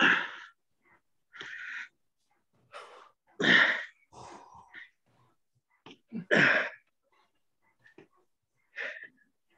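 A man breathing hard during mountain climbers: five short, forceful exhalations about two seconds apart, with the strongest two near the middle.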